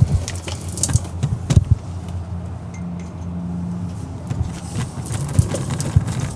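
Scattered clicks, knocks and light metallic clinks of hands handling tools and wiring under the vehicle, over a steady low hum.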